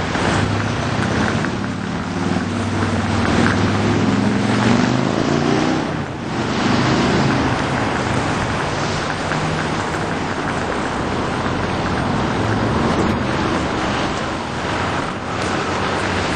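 City street traffic: a steady wash of passing cars and motor scooters with wind buffeting the microphone, and a vehicle engine's low hum standing out over roughly the first seven seconds.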